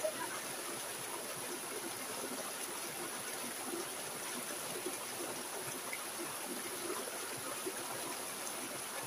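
Stream water pouring down a small rock cascade into a shallow pool: a steady splashing rush.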